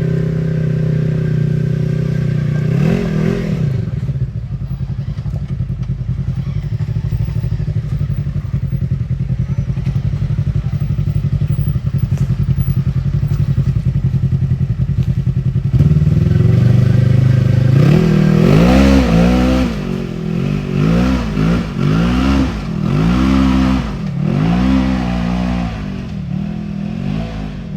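Polaris RZR side-by-side's engine running at a steady speed, with one brief rev about three seconds in. It gets louder at about sixteen seconds, and from about eighteen seconds the revs rise and fall roughly once a second as the throttle is worked on and off.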